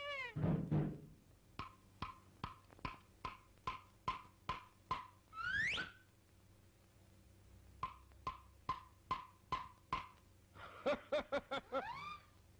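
Early-1930s cartoon soundtrack of percussion effects: a low thud just after the start, then a steady series of short pitched wood-block-like taps, about two and a half a second. A quick rising glide comes around the middle, then more taps, and a quick run of short rising notes near the end.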